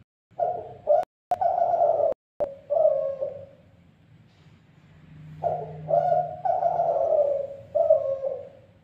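Spotted dove cooing: two phrases of low, repeated coos, the first in the opening three seconds and the second from about halfway through to near the end.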